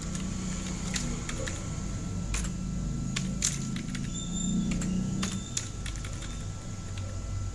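Computer keyboard typing: a dozen or so separate keystrokes at an irregular, unhurried pace over a low steady hum.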